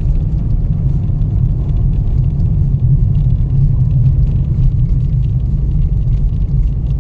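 Strong blizzard wind buffeting the microphone: a steady, loud low rumble that gusts unevenly.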